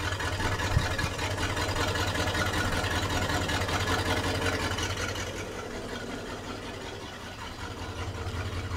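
Boat engine idling steadily, running healthy after its cooling system was repaired, with a brief knock about a second in. It eases slightly quieter for a couple of seconds past the middle, then comes back up.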